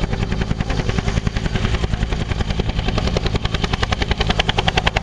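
Agusta-Bell AB212 twin-turbine helicopter hovering, its two-bladed main rotor beating at about ten beats a second over a steady engine and rotor rumble. The beating grows sharper near the end.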